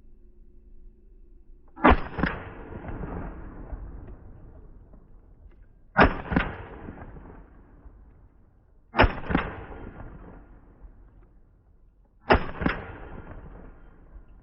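Semi-automatic 12-gauge shotgun firing four shots, a few seconds apart, with Federal field loads. Each report is followed a moment later by a second, sharper crack and a short ringing tail.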